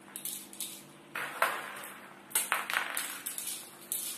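Airsoft BBs being pressed one at a time into the magazine of a D'Cobra M-306 spring airsoft gun, each going in with a small sharp click. About a dozen irregular clicks, several in quick succession past the middle.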